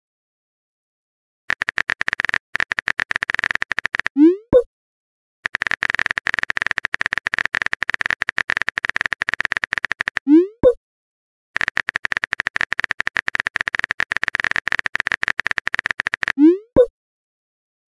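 Chat-app sound effects: rapid keyboard-typing clicks in three runs, each run ending with a pair of short rising blips as a message is sent.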